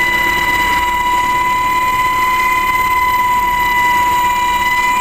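HH-60 Pave Hawk helicopter running, heard from inside its cabin: loud, steady rotor and turbine noise with a constant high whine.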